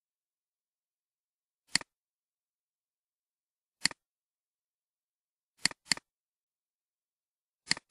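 Five short, sharp computer mouse clicks over dead silence, about two seconds apart, with two in quick succession a little past the middle.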